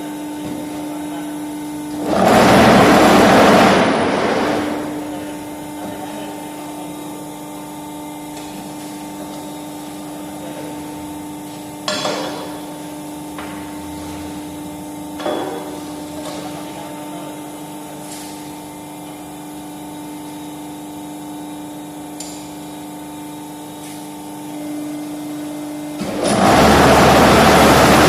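Paving-block press machine running: a steady motor hum, broken by a loud rough vibrating noise about two seconds in that lasts about two seconds, two sharp metallic knocks around the middle, and the loud vibrating noise starting again near the end as the mould vibrators run.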